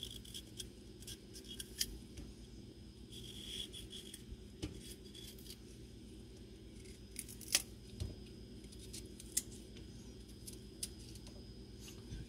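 A small kitchen knife peeling the tough fibrous skin from a broccoli stalk: quiet, irregular crisp snaps and scrapes as the knife catches and pulls strips of skin away, with a few sharper clicks in the second half.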